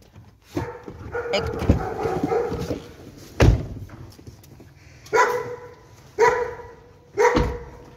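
A car door thuds shut about three and a half seconds in. From about five seconds in a dog barks, short barks about once a second.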